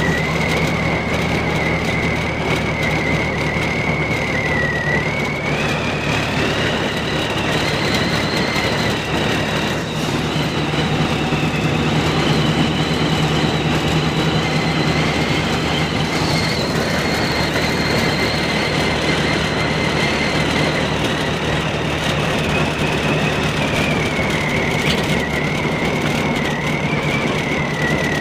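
Car driving on a snowy road, heard from inside the cabin: steady engine and road noise with a low hum and a high whine that climbs in pitch about six seconds in and drops back near the end.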